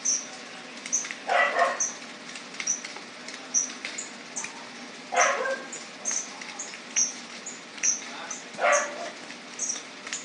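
A dog barking now and then, a short bark about every three to four seconds, over a steady series of short high squeaks about two a second.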